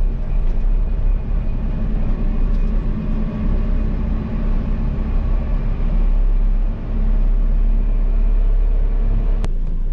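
JCB's diesel engine running steadily while driving, heard from inside the cab as a continuous low rumble. A single sharp click sounds near the end.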